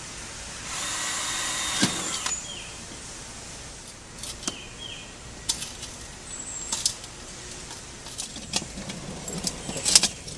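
Cordless drill running for about a second and a half, boring a starter hole through the sheet-metal lid of a small kettle grill. Then tin snips cutting the lid's metal, with sharp metallic clicks every second or so that come in quick succession near the end.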